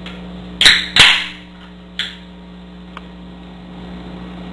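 Aluminium Pepsi can being snapped open: two sharp cracks about a third of a second apart, the second trailing into a short fizz, then a smaller click about a second later. A steady electrical hum sits underneath.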